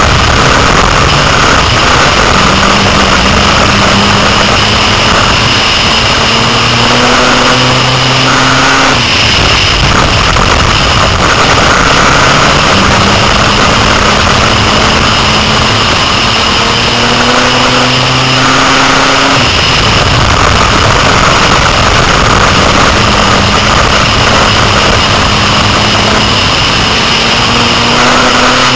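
Six-cylinder dirt-track race car engine heard from inside the car, loud and running hard. Its pitch climbs steadily three times and drops back each time, as the car accelerates down the straights and backs off for the turns.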